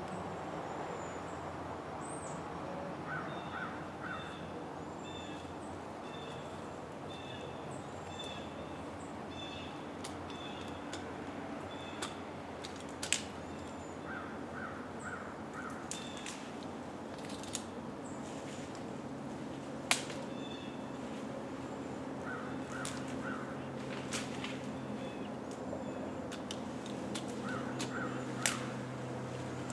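Birds calling outdoors, one giving short calls in sets of three every several seconds while another chirps steadily in quick pairs. A few sharp knocks and a faint low hum run under them.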